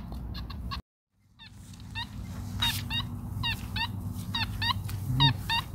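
Many short bird calls, often in pairs, going on through a brief dropout about a second in, with a steady low hum beneath.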